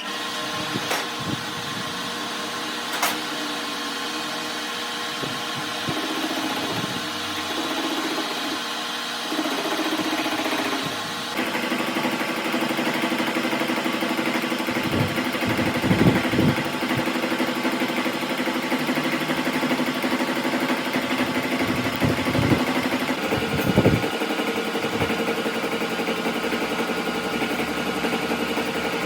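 A metalworking machine tool's motor running steadily with a constant hum and whine, its sound shifting about eleven seconds in and again near twenty-three seconds, with a few light knocks along the way.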